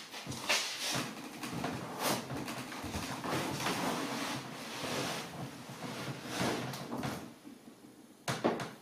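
Rustling and scraping with a few knocks as a person climbs onto a homemade double-wall corrugated cardboard desk and sits on it, testing whether it holds her weight. The rustling dies away about seven seconds in.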